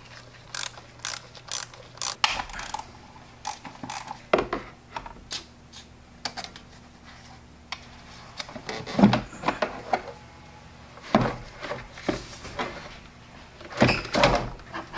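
Irregular clicks, knocks and plastic rattles as the air intake tube and airbox of a Land Cruiser 100 are unclipped and lifted out of the engine bay, with louder clunks around the middle and near the end.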